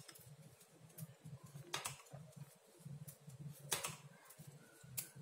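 Knitting needles clicking faintly as stitches are worked, three short clicks spread over a few seconds, over a steady low hum.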